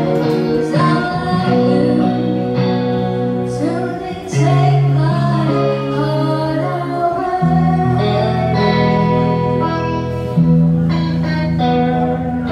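Live music: a woman singing into a microphone over guitar accompaniment, with sustained low bass notes changing every second or two.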